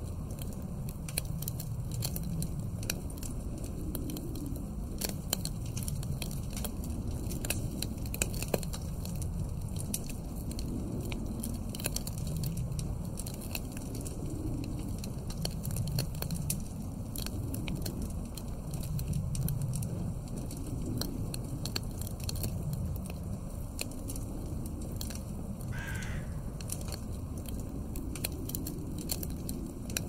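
Wood fire crackling and popping in a fireplace, over a low wind that rises and falls in slow gusts. A single short falling sound, about a second long, comes near the end.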